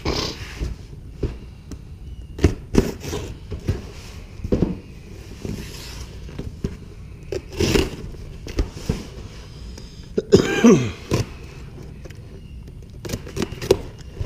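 Handling noise of short knocks, clicks and scrapes as a cardboard box is moved about beside a sheet-metal air handler cabinet. About ten seconds in comes the loudest sound, a congested cough.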